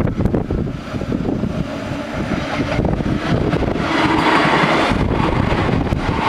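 Wind buffeting the microphone, then a Skånetrafiken X61 electric multiple unit arriving about four seconds in and running past across the level crossing, its noise building and holding steady.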